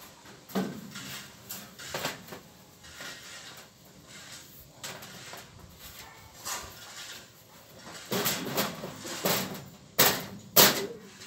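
A thin sheet being handled and pushed into a metal gate frame by hand: scattered knocks and rattles, growing busier toward the end, with two sharp loud knocks about a second from the end.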